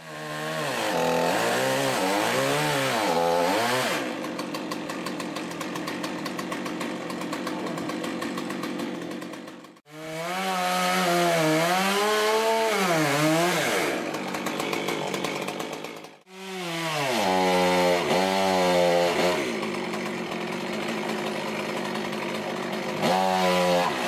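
Small two-stroke top-handle chainsaw running, its pitch repeatedly rising and falling as the throttle is worked, with steadier stretches between. The sound breaks off abruptly and starts again twice, about ten and sixteen seconds in.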